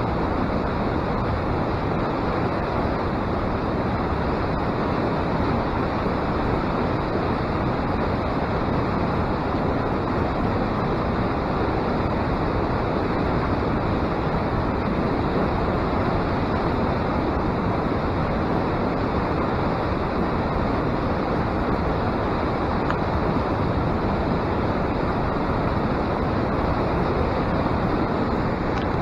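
Steady rush of fast, foaming river water running through a channel.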